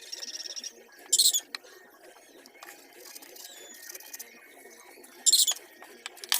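Woodworking work noises: a brief fast buzz, then two short loud rasps about four seconds apart, with scattered small clicks and knocks.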